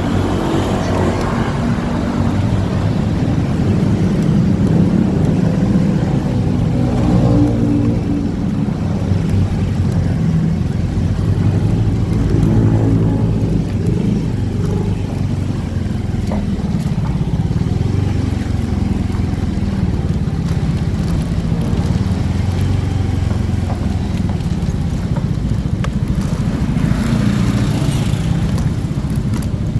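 Motorcycle running along the road, its engine note rising and falling a little with the throttle, with steady road and wind noise.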